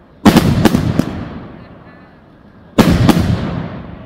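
Large firecrackers (Polenböller) going off: two loud bursts about two and a half seconds apart. Each burst is a sharp bang with a second report close behind it, then echoes that fade out over a second or so.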